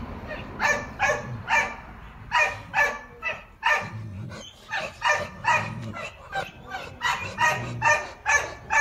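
A dog barking over and over in short barks, about two a second.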